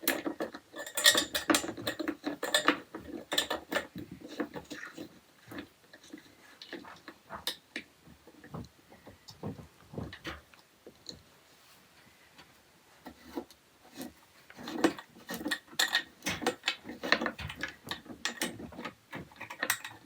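Irregular small clicks, taps and clinks of rack parts and screws being handled and tightened with Allen keys during flat-pack assembly. The clicks are busiest at the start and again over the last several seconds, with a sparser stretch in the middle.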